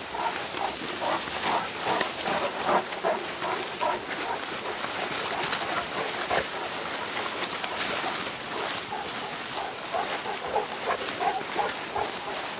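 A dog gives short, quickly repeated whines, in one run at the start and another near the end, over the rustle of bodies pushing through tall weeds and grass.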